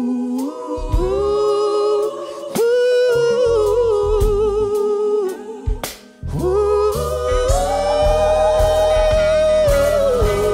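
Live band playing a gospel-tinged soul-rock song: long held sung notes with vibrato from the lead singer and gospel backing singers over drums, bass and electric guitars. The band drops out briefly about six seconds in, then comes back in full.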